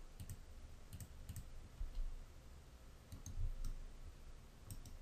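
Faint, scattered clicks of a computer mouse and keyboard keys, a few separate clicks spread over several seconds, with soft low bumps beneath.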